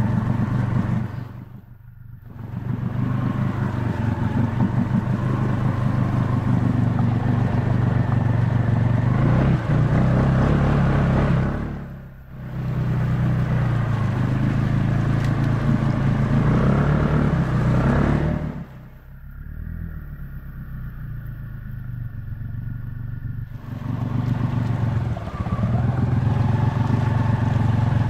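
ATV engine running as it pushes through flood water, with the throttle let off and opened again: it drops away briefly about two seconds in and again about twelve seconds in, revs up shortly before settling lower and quieter for several seconds, then picks back up near the end.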